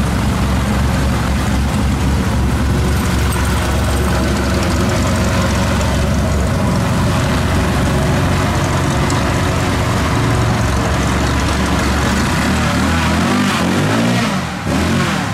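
Airboat engine and propeller running loud and steady. A little before the end the engine note swings up and down as it revs, then drops off briefly.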